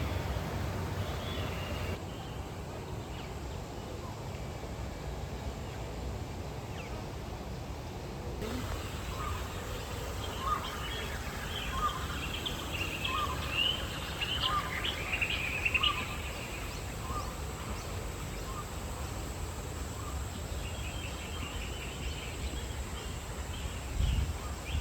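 Birds chirping and calling over a steady low background rumble: a short call repeats about once a second for some ten seconds, with a burst of higher chirps in the middle and a faint fast-pulsing call near the end.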